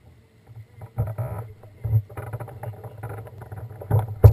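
Irregular knocks and rattling of an alpine slide sled and its control handle, carried through the mounted GoPro, with a sharp knock near the end.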